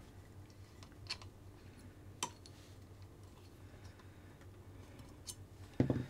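Faint handling of small metal parts: a few sharp clicks as the screw-down collars on an RC excavator's bucket pins are worked loose with a small tool, the loudest about two seconds in, and a soft knock near the end.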